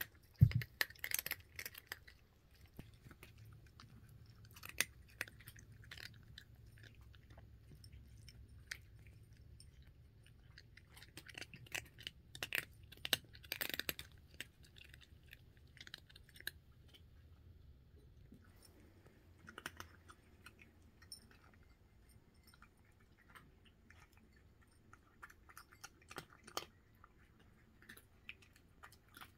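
Cats crunching dry kibble from a bowl: irregular crunching clicks of chewing, coming in bursts, with a sharp low thump about half a second in.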